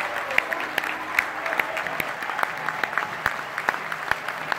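Concert audience applauding, with loud claps close by keeping an even beat of about two to three claps a second over the crowd's applause.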